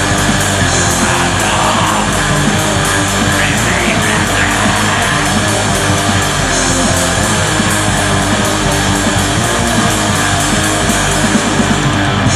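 Metal song: distorted electric guitars over drums beating at a steady, even pace, loud and dense throughout.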